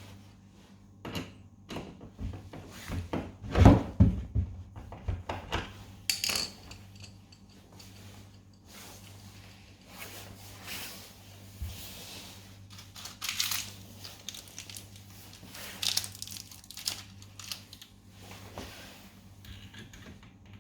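Metal kitchen cabinet hinge and screws being handled and fitted by hand: scattered clicks, taps and scraping, with a cluster of louder knocks about four seconds in.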